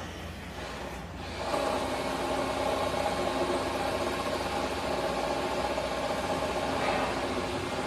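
A machine running steadily with a steady hum, coming in louder about a second and a half in.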